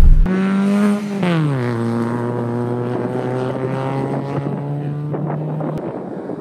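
Race car engine running hard, its note falling steeply about a second in and then holding a steady lower pitch. It cuts off abruptly near the end, leaving a rough rushing noise.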